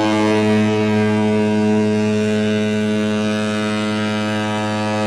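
A ship's air whistle sounds one long, steady, low blast. This is the prolonged blast of the one-long, two-short signal a ship gives when its steering has failed and it is not under command, warning other vessels to keep clear.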